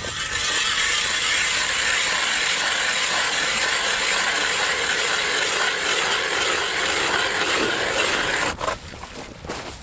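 Hand ice auger's blades cutting into lake ice, a steady grinding scrape that stops about eight and a half seconds in.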